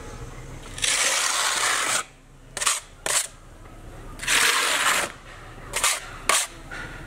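A flat putty blade scraping across wet rustic texture putty on a wall in two long strokes of about a second each, levelling the joint between two textured patches. Short sharp knocks come between the strokes.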